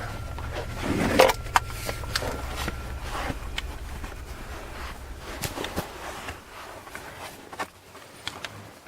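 Scattered knocks, scuffs and footsteps of people clambering down into a concrete underground shelter, over a low rumble that drops away about six seconds in.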